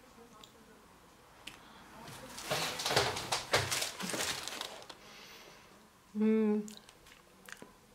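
About two seconds of close rustling and crackling, then a short hummed "mm" about six seconds in.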